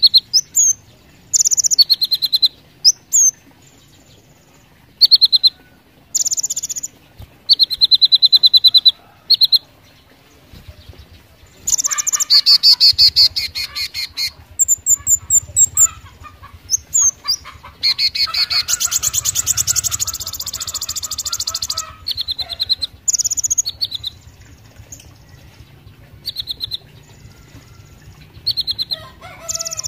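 Male Van Hasselt's sunbird (kolibri ninja) singing: loud bursts of rapid, high, sharp trilled notes, some phrases sweeping up or down in pitch, with a longer, denser run of song in the middle.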